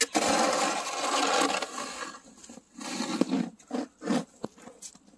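Snow shovel scraping through heavy, slushy snow: one long loud scrape just after a sharp knock at the start, then several shorter scrapes and crunches.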